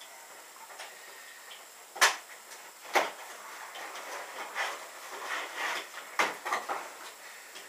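Cardboard boxes being opened by hand: two sharp knocks, then a few seconds of rustling and scraping of packaging, with two more knocks near the end.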